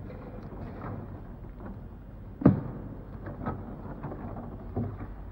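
A few sharp knocks and thuds over a steady hiss and low hum. The loudest comes about two and a half seconds in, with smaller ones about a second later and near the end.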